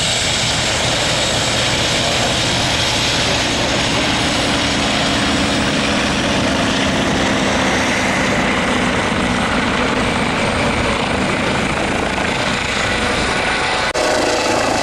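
Two piston-engined biplanes flying past in formation, their engines and propellers droning steadily. Near the end the sound cuts abruptly to a Eurocopter EC135 helicopter's turbine and rotor noise.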